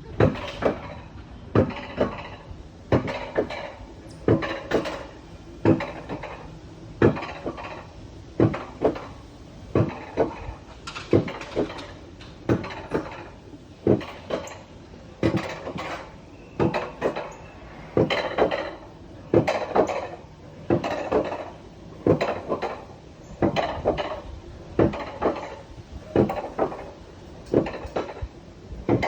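Repeated sharp metallic clanks and knocks, about one every second and a half with an occasional extra one, with rattling in between.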